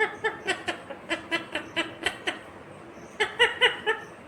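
Indian ringneck parakeet calling in a quick series of short pitched notes, about five a second, then a pause and a second shorter run.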